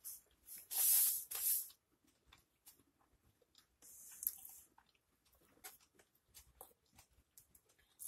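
Close-miked chewing of a pulled pork sandwich: soft wet mouth clicks and smacks throughout, with two loud breathy hisses about a second in and a shorter, thinner hiss around four seconds.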